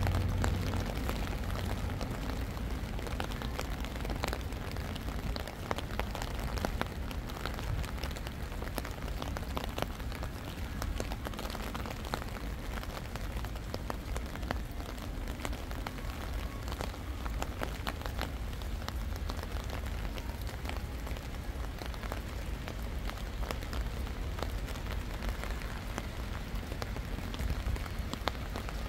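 Steady rain falling, with many individual drops ticking close by over a constant low rumble. A deep hum fades out in the first second.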